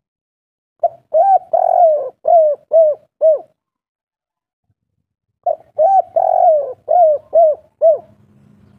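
Spotted dove cooing in the 'kuk 3' song style: two phrases of about six arched coos each, the third coo of each phrase longer, with a pause of about two seconds between the phrases.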